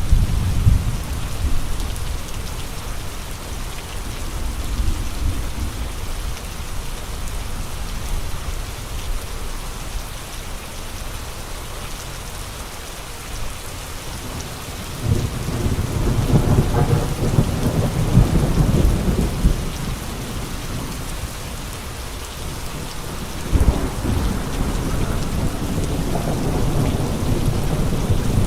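Steady rain with gusting wind. A deep low surge swells about halfway through and lasts several seconds, and another rises near the end.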